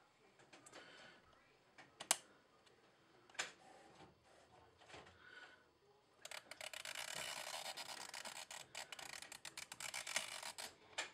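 A Theben analogue time switch being worked by hand: a few sharp clicks as the perm/auto selector slider is pushed, then the plastic 24-hour dial turned with a finger, a rapid ratcheting rasp of fine clicks lasting about four seconds.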